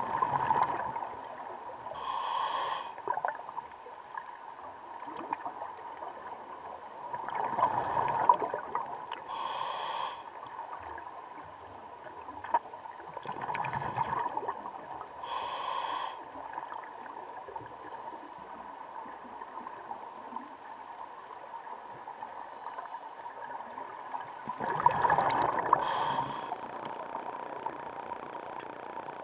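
Scuba diver's breathing through the regulator, heard underwater: four breaths, each a bubbling exhalation followed a second or two later by a hissing inhalation through the demand valve. A faint steady whine sits underneath throughout.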